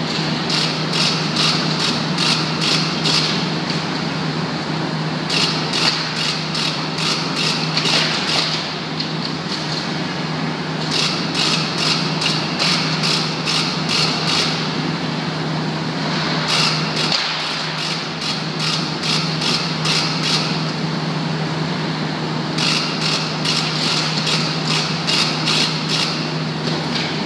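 Steady industrial hum of a hot-dip galvanizing plant, with bursts of rapid clicking or rattling about three seconds long that return every five to six seconds, while a steel ladder is lowered into the molten zinc kettle.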